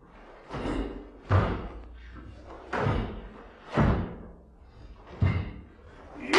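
About five sharp snaps and thuds, each with a short ringing decay, from a karate kata being performed: the gi cracking with each punch or kick and bare feet striking the wooden floor.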